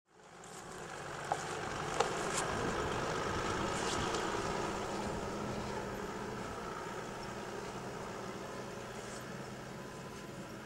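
Toyota Land Cruiser HDJ80's 4.2-litre straight-six turbodiesel running at low revs as the truck crawls slowly up a rocky track, slowly growing fainter as it pulls away. Two sharp clicks sound in the first couple of seconds.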